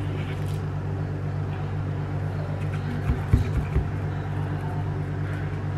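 A steady low hum runs throughout. A little past halfway, a few soft low thumps come as a kitchen knife presses down through the chewy layered tapioca cake onto the plastic-covered table.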